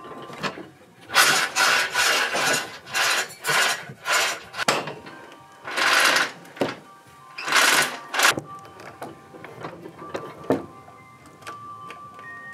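Background music with a run of short rasping strokes on wood, about two a second, stopping about eight seconds in.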